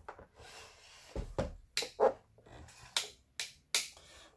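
Hands handling a plastic-bodied Lion (Janome) Indigo 14 household sewing machine on a workbench: a dull thump about a second in, then several sharp clicks and knocks of its plastic case and parts. The machine is not running.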